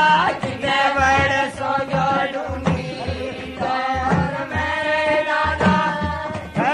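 Men singing a Goga Ji devotional bhajan in a loud, energetic folk style, over a steady drumbeat and the clash of metal hand cymbals.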